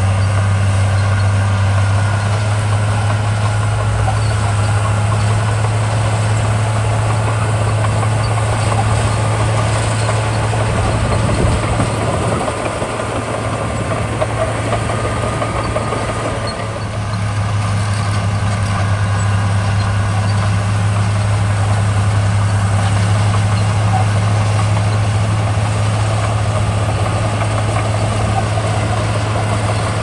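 Heavy diesel engine of road-building machinery running with a steady low drone; it eases off for a few seconds about twelve seconds in, then comes back to full strength.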